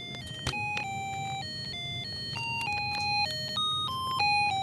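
A Snap Circuits music chip plays a beeping electronic melody of short steady notes that step up and down in pitch. It is turned down by a resistor in the circuit and comes out hard to hear.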